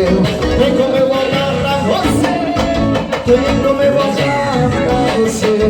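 Brazilian forró music playing, a melodic lead over a steady beat.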